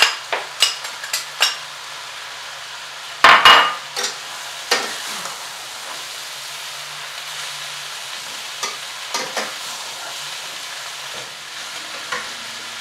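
Chicken and mango stir-fry sizzling steadily in a hot pan, with a utensil knocking and scraping against the pan as it is stirred. There is a louder burst about three seconds in.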